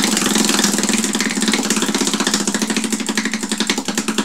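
Tabletop prize wheel spinning, its flapper clicking rapidly against the pegs, the clicks slowing as the wheel winds down.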